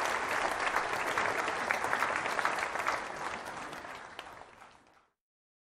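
Large audience applauding. The clapping fades away over the last couple of seconds and stops about five seconds in.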